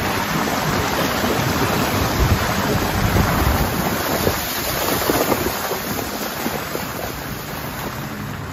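Pickup truck's plow blade pushing wet slush along the pavement, the slush scraping, churning and sliding off the side of the blade, over the low running of the truck's engine and tyres.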